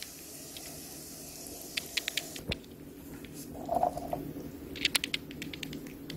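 Tongs clicking against a grill pan and light crackles of fat as pork belly slices and garlic are turned. The clicks come in two clusters, about two seconds in and about five seconds in, over a low steady hum.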